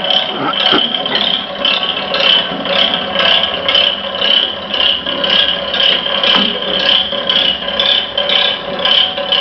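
A steady mechanical whirring rattle that pulses evenly about two to three times a second.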